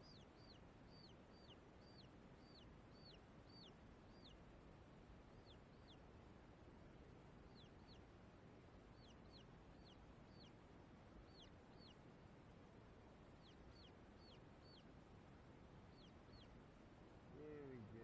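Faint chick peeping from silkie chicks: runs of short, high, downward-slurred peeps, about two a second, broken by pauses. A brief lower falling call comes near the end.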